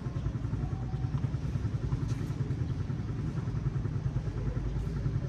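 A small engine running steadily, a low fluttering rumble.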